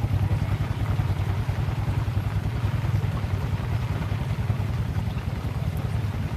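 A small engine running steadily with an even, low pulsing beat.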